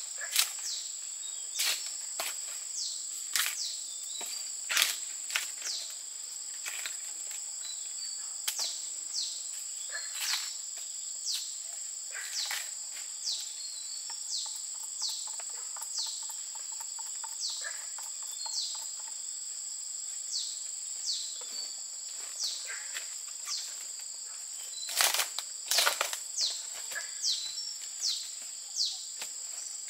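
Steady high-pitched drone of insects, with irregular sharp knocks and short falling chirps throughout, and a quick run of louder knocks near the end.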